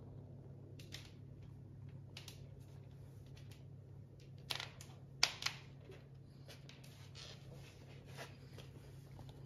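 Low steady hum with scattered light clicks and taps, three sharper ones about halfway through.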